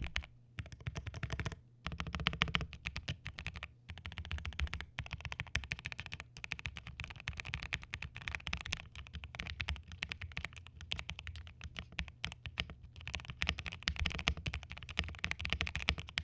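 Fast typing on a custom mechanical keyboard with an aluminium Akko ACR Top 75 case, Gateron Oil King linear switches and Cherry-profile keycaps: a dense run of key clacks, broken by a few brief pauses.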